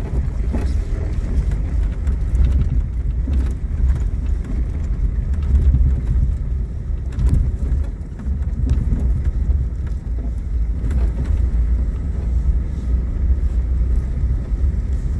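A Jeep driving over a sandy dirt track, heard from inside the cab: a steady low rumble of engine and tyres, with a few faint knocks from bumps.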